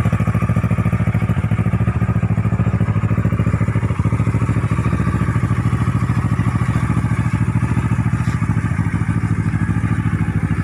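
Kawasaki Ninja 650's parallel-twin engine idling steadily through an aftermarket Akrapovic full exhaust system.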